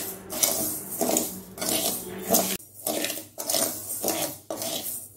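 Perforated steel ladle stirring raw rice and moong dal as they dry-roast in an aluminium kadai, in repeated strokes: the grains rustle and the metal scrapes against the pan.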